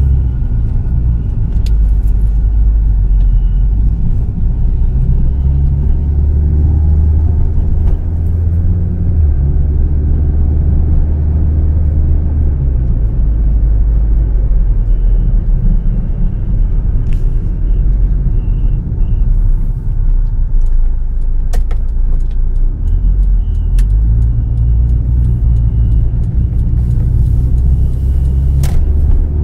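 Proton Gen-2 car running with a steady low rumble. A faint, thin, high whistle comes and goes several times: the whistling noise whose source the owner cannot find.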